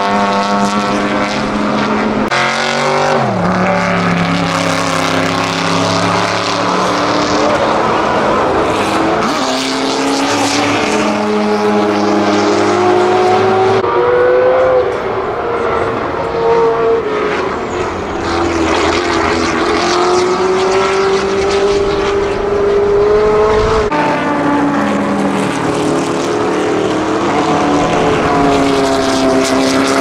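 Several 1960s racing-car engines at full throttle, cars passing one after another. The engine notes climb through each gear and drop sharply at the upshifts, with more than one car heard at once.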